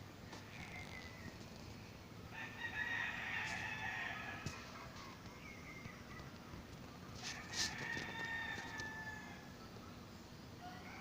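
Roosters crowing: two loud crows, about two and a half and seven and a half seconds in, with fainter crows near the start and the end.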